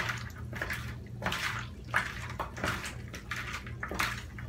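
Raw chicken wings being mixed by hand in a bowl of oily marinade: a run of irregular wet squelches and slaps, roughly one every half second to second.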